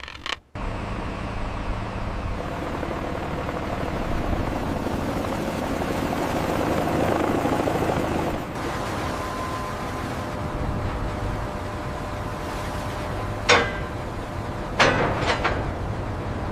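Steady mechanical rumble of heavy lifting machinery, swelling briefly about halfway through, with a sharp knock near the end and two more about a second and a half later.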